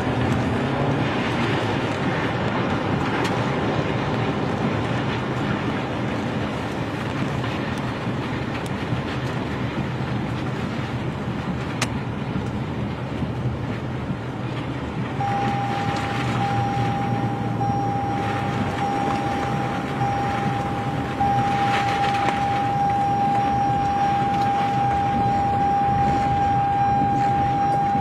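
Steady rushing noise of tornado wind and rain heard from inside a vehicle, over a low hum. About halfway through, a steady high-pitched tone starts and holds on.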